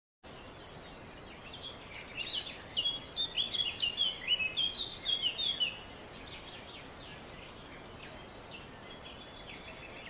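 A small songbird singing a fast, twittering run of chirps for about five seconds, then falling silent, over a faint steady hiss.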